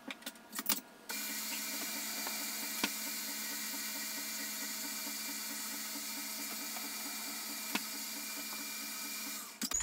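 Electric stand mixer switched on about a second in, its motor running steadily while it mixes cake batter, then shut off near the end. A few clicks come just before it starts.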